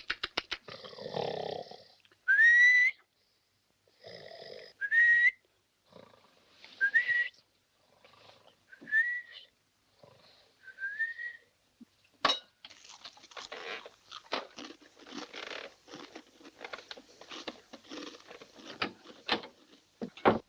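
A man snoring comically: rasping snores alternate with a short rising whistle on the out-breath, five whistles about two seconds apart. A sharp click follows a little after halfway, then several seconds of dense crackling and rustling.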